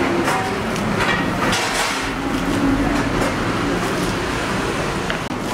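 Steady street traffic noise, with a few irregular knocks of a kitchen knife striking a wooden cutting board as green chillies are chopped.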